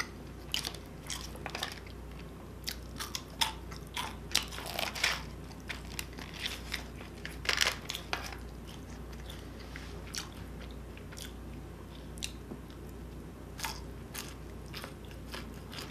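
Close-up chewing of crispy crinkle-cut cheese fries, irregular crunches in quick succession that thin out in the last few seconds.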